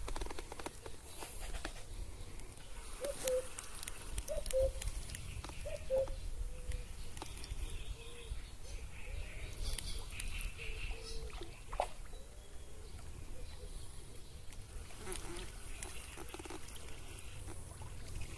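Short animal calls repeat every second or so, over a low rumble. There is a sharp click about twelve seconds in.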